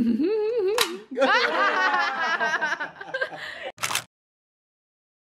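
Crocodile-dentist toy's jaw snapping shut with a sharp click, followed by a burst of excited shrieking and laughter from several people. A second click comes about four seconds in, then the sound cuts to dead silence.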